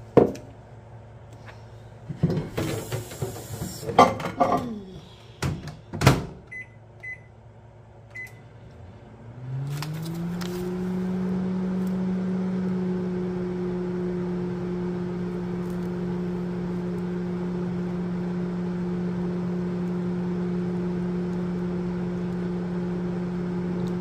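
A few clicks and rustling, then three short high beeps from a microwave oven's keypad. About ten seconds in the microwave starts running: its hum rises briefly in pitch and then holds steady as it heats a jar of hard wax.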